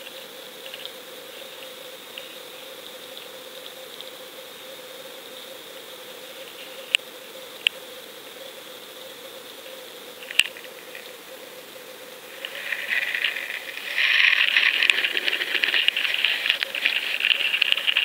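Underwater noise picked up through a GoPro's waterproof housing on a lake bottom: a steady hiss with a faint hum and a few sharp clicks, then from about twelve seconds in a loud, rapid crackling rattle.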